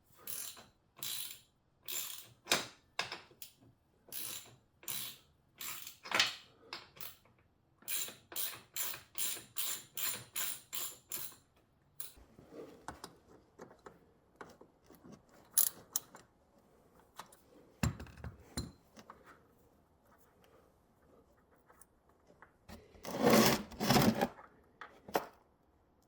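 Metal clicking and clanking from hand work on an ATV front differential. Sharp, evenly spaced clicks come about two a second and quicken near the ten-second mark, then give way to scattered quieter knocks, with one louder clattering burst near the end.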